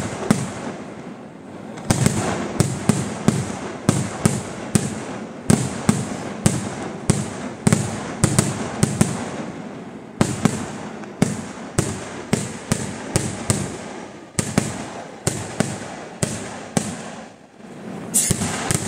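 Kerala temple fireworks (vedikettu) going off in rapid succession: a steady string of sharp, loud bangs about three a second. There is a short lull early on and another just before a final cluster of bangs near the end.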